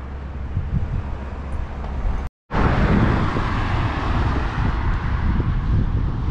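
Wind buffeting the microphone with a steady low rumble, and a car passing on the road after the sound drops out for a moment about two seconds in.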